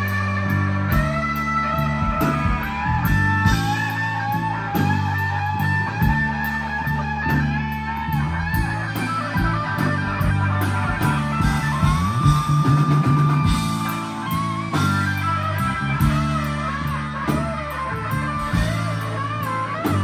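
Live rock band playing an instrumental passage: an electric guitar lead with bent, wavering notes over bass guitar and drums, with one long held note a little past the middle.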